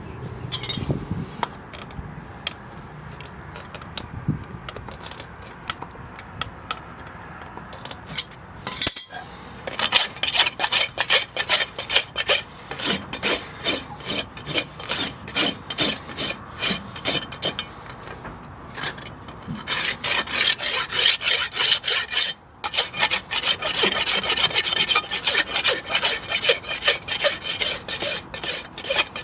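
Farrier's hoof rasp filing a horse's hoof in repeated rhythmic strokes, starting about nine seconds in after a quieter stretch of light scraping, with a couple of short pauses.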